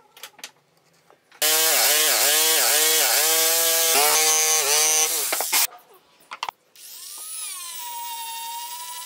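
An electric jigsaw cutting wood, its motor note dipping again and again as it is loaded; it stops about five and a half seconds in. About a second later a small rotary tool spins up with a rising whine and runs on at a steady high pitch.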